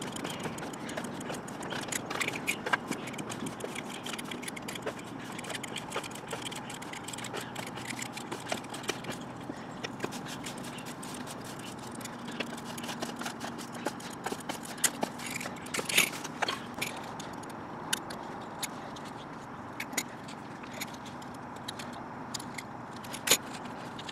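Utility knife cutting and trimming a rubber Trim-A-Slab expansion-joint strip: scattered small clicks and scrapes as the blade works the rubber, with a few sharper clicks about two-thirds of the way through and near the end, over steady background noise.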